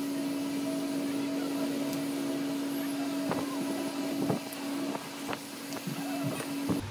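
Bosch GWS 6-100 angle grinder running unloaded with a steady whine, its spindle wobbling on a worn head bearing that has play, with a few light knocks from handling. The whine cuts off abruptly near the end.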